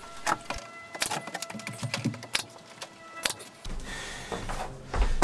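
Pneumatic brad nailer firing several sharp shots about a second apart, driving nails through the tongue of tongue-and-groove floorboards so they will be hidden by the next board.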